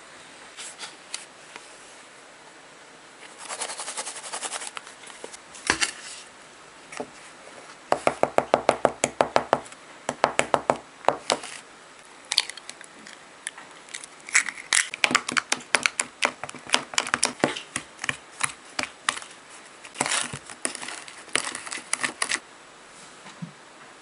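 Metal spoon stirring cocoa cake batter in a plastic food container, clicking quickly against its sides. The clicks come in several bursts of about eight a second, with short pauses between them.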